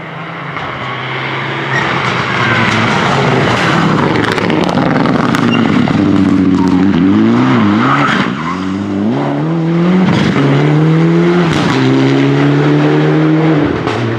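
Mitsubishi Lancer Evolution rally car's turbocharged four-cylinder engine driven hard. It holds a steady note at first, then from about six seconds in the revs climb and drop again and again with the gear changes through the corner, with occasional sharp cracks. It fades as the car moves away at the end.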